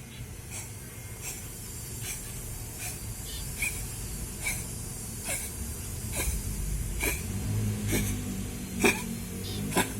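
A cat wheezing, with a short wheeze on each breath a little more than once a second, louder near the end. The uploader takes this wheezing for the sign of a feline asthma attack.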